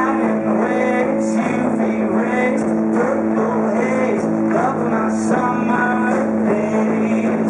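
Rock band playing live, with electric guitars over drums.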